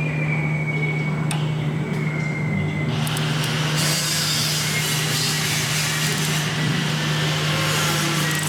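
Steady low machine hum, joined about three seconds in by a whirring rush as the 20-inch bandsaw wheel spins past the dial indicator, checking the rim's runout after the bushing screws are equalized.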